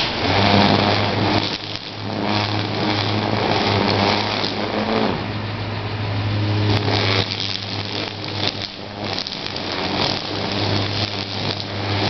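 Two-stroke chainsaw running up in the tree, its engine speed and loudness rising and falling as it is throttled.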